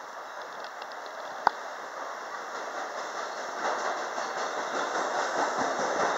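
MBTA Red Line subway train approaching on elevated track, the rumble of its wheels on the rails growing steadily louder as it nears. A single sharp click about a second and a half in.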